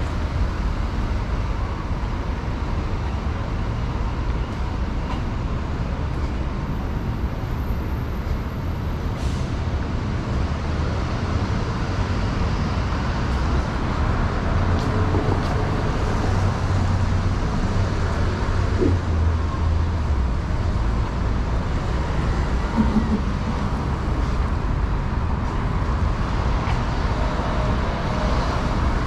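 City street traffic: a steady low rumble of passing motor vehicles.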